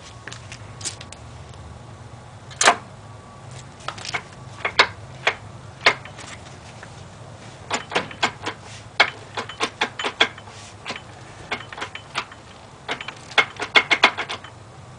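Irregular sharp metal clicks and knocks from the Hendey lathe's headstock as its levers and chuck are worked to free the chuck, with a quick run of clicks near the end.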